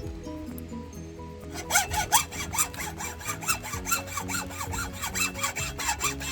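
Rhythmic back-and-forth scraping strokes of a hand tool, about two to three a second, starting a little over a second in, over background music.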